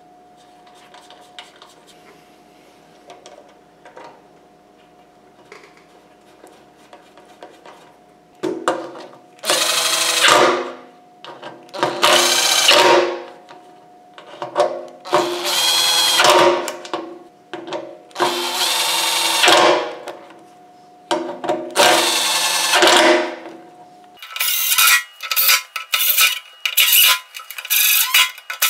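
Makita cordless impact driver running in five short runs of a second or two each, driving the screws of a fuel pump flange on an aluminium tank. Near the end come a quick series of short trigger pulses. Faint clicks of small parts being handled come before the first run.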